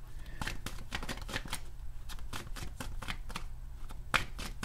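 An oracle card deck being shuffled by hand: a quick, irregular run of card snaps and flicks, with a louder snap near the end. A steady low hum lies underneath.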